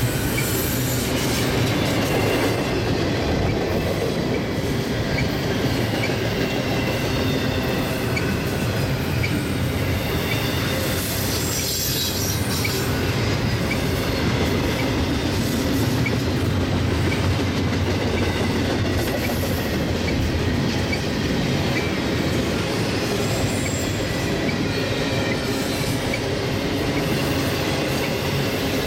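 CSX double-stack intermodal train passing at steady speed: the well cars' steel wheels rumbling and clattering over the rails, with thin high wheel squeals at times.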